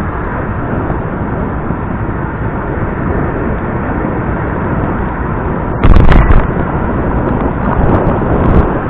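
Steady loud rushing noise on the microphone of a moving camera, with one much louder thump about six seconds in and a few smaller knocks near the end.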